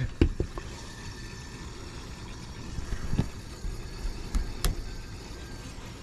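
A few soft knocks and bumps from someone moving about and handling things in an attic, over a steady low hiss.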